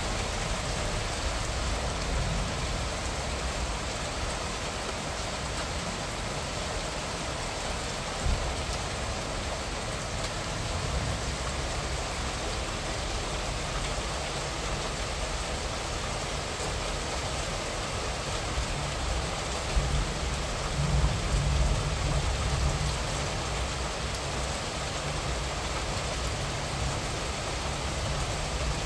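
Moderate rain falling steadily, heard as an even hiss of drops. A low rumble under it swells briefly about a third of the way in and again about two-thirds of the way through.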